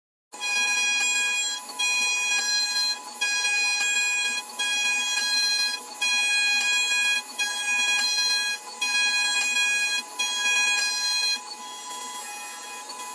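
Automatic key cutting machine running through a cut: a high, steady whine that comes in about eight passes of roughly one and a half seconds, each separated by a short break, and turns quieter near the end.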